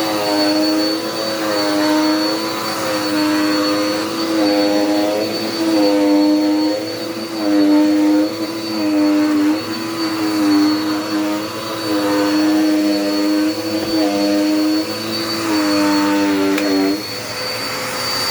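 Dirt Devil Power Max upright vacuum cleaner running, its motor tone dipping and recovering in a repeating pattern about every second and a half, over a steady high whine. Near the end the motor tone drops away, leaving a flatter rush of air.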